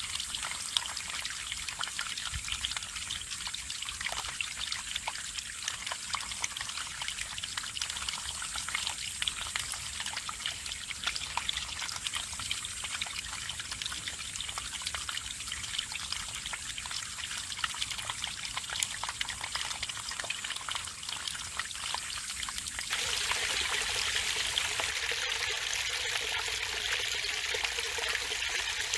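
Mountain stream water trickling and splashing over rocks, with many small drips and plinks. About 23 s in it changes suddenly to a louder, fuller rush of water.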